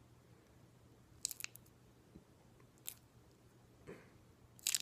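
Faint scattered clicks and clinks from a stainless steel watch and its link bracelet being handled and turned in the hands, with a short cluster of clicks near the end.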